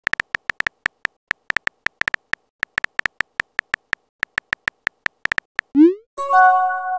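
Phone keyboard typing sound effect: a rapid string of short clicking blips, several a second, as letters are typed. Near the end comes a quick rising swoosh as the message sends, then a short chime of several held tones.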